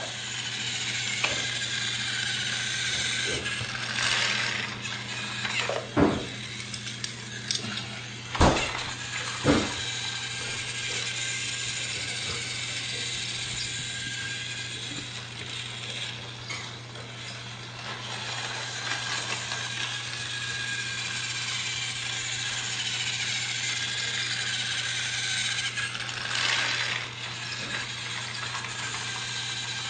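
Motorized toy train running: a steady motor hum with a wavering gear whine, and a few sharp plastic knocks in the first ten seconds.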